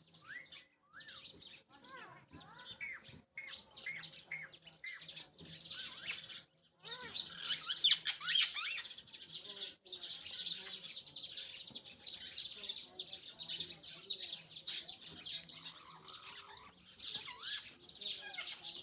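Parakeets chirping and chattering, with scattered rising and falling calls at first, then a dense, continuous chatter of many birds from about seven seconds in.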